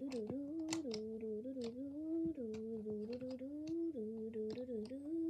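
A girl humming a tune to herself, the pitch stepping up and down without a break, over light clicks and taps of colored pencils being handled and sorted.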